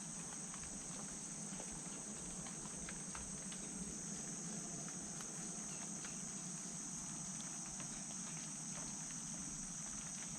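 Steady, high-pitched chorus of insects in the woods, with faint scattered ticks.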